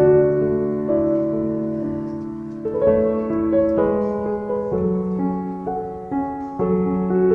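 Background piano music: slow, held chords that change about every second.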